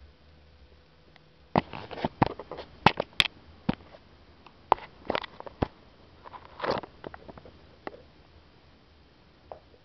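A kitten playing at close range: an irregular run of sharp taps and clicks, thickest in the first few seconds, and a short rustle about seven seconds in.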